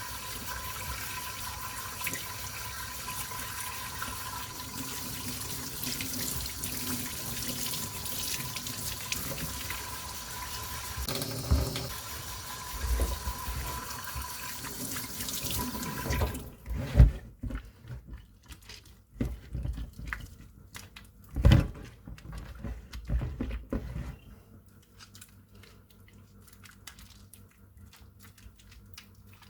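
Tap water running steadily into a sink, shut off about halfway through. Several loud knocks and thumps of handling follow, then it goes quiet.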